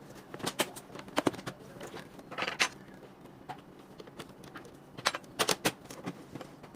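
Irregular clicks and taps of hard plastic parts and small tools being handled while an all-in-one PC is taken apart, with a short scratchy rattle about two and a half seconds in and a quick cluster of clicks near the end.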